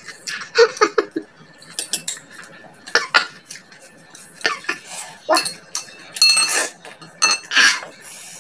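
Chopsticks clicking and clinking irregularly against a ceramic bowl while eating, with short mouth noises of eating in between.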